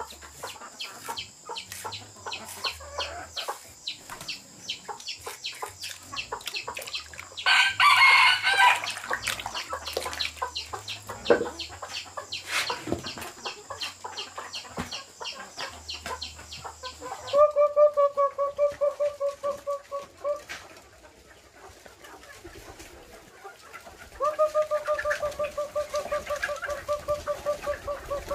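Chickens calling: a rooster crows once about eight seconds in, and later long runs of rapid calls held at one pitch. Quick, even knocking and a steady high whine run under the first half and stop about seventeen seconds in.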